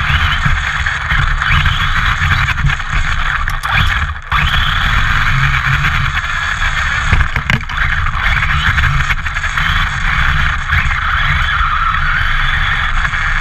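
Team Redcat MT-8E 1:8 brushless RC monster truck driving over grass and snow, heard from a camera mounted on the truck: a steady, loud rush of motor, drivetrain and tyre noise over a heavy rumble, dipping briefly about four seconds in.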